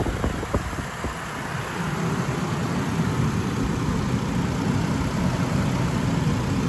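2003 GMC Envoy engine idling steadily, heard close up from the open engine bay, with light valve-train and cooling-fan noise; a few short knocks in the first second.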